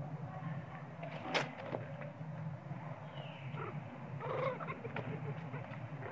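Young macaque calling: a short falling squeal about three seconds in, then a brief cry a second later. A sharp snap comes about a second in, with the scuffle of monkeys moving over dry leaves.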